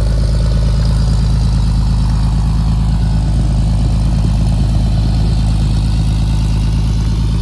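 1954 Chevrolet pickup's engine idling steadily, at an even speed with no revving.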